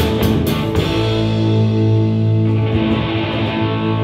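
A live band of electric guitar, upright bass and drum kit playing: drum and cymbal hits stop about a second in, and a held guitar chord rings on over sustained low bass notes, the song's closing chord.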